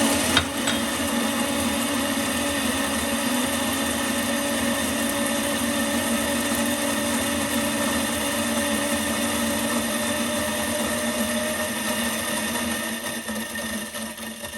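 Versalab M4 coffee grinder running steadily while grinding a dose of espresso beans, with a few sharp clicks about half a second in as beans drop in. It grows quieter over the last couple of seconds as the dose runs through.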